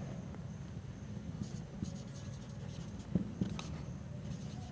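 Marker pen writing on a whiteboard: faint scratching in short strokes, with a few light ticks as the tip lifts and touches down.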